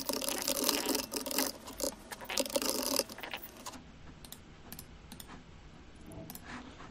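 Fast typing on a computer keyboard for about three seconds, then only a few scattered clicks.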